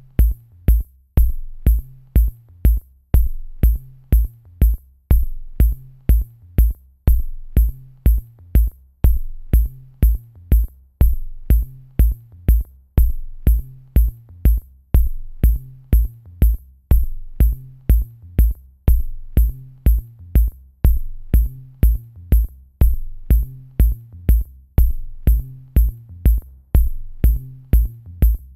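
Electronic background music: a steady drum-machine kick about twice a second over a repeating bass line, with a light high tick on each beat.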